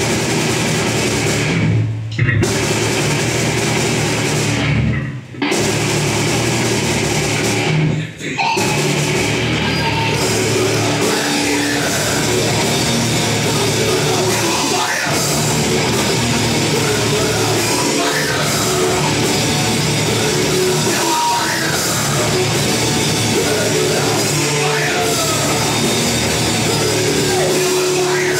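Thrash metal band playing live: distorted electric guitar, bass guitar and drum kit at full volume. Three short stop-start breaks come in the first eight seconds, then the song drives on without a break.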